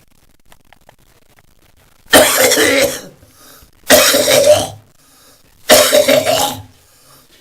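A man coughing, three long, loud coughs about two seconds apart after a couple of seconds of quiet. It is part of a morning coughing fit that he describes as clearing the tubes and lungs.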